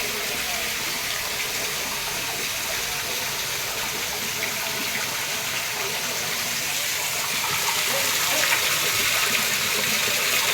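Water rushing and splashing steadily, growing a little louder about eight seconds in, with faint voices underneath.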